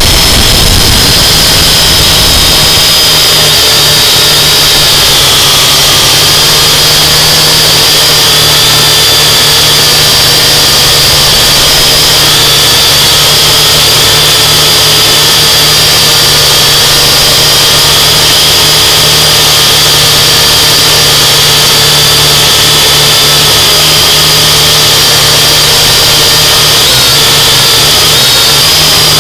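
UDI 842 Falcon toy quadcopter's motors and propellers whining steadily and loudly, heard through its own onboard camera, the pitch wavering slightly with the throttle.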